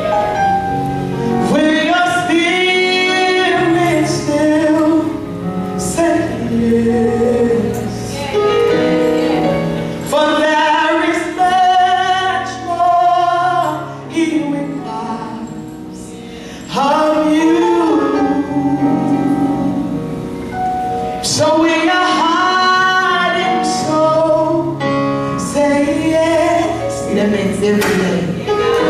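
Gospel song: a woman sings the lead into a microphone with long, bending held notes over a steady sustained backing. It goes softer for a few seconds about halfway through, then comes back full.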